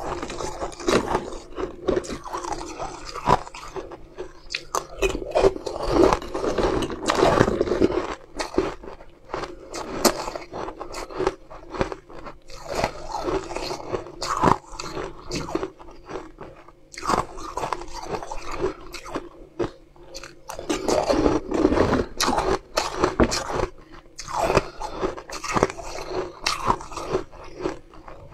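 Close-up crunching and chewing of hard, frost-coated blue balls, bitten into one at a time: clusters of crisp cracks with short pauses between mouthfuls.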